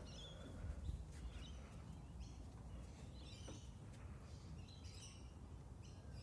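Parrots chirping and calling in short, scattered bursts, with a steady low rumble underneath.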